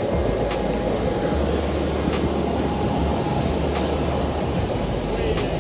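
Steady loud mechanical noise with a constant high-pitched whine over it.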